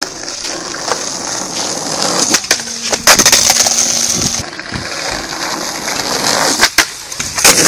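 Skateboard wheels rolling over rough tarmac with a steady hiss, broken by several sharp clacks of the board hitting the ground. A louder scraping stretch comes about three seconds in.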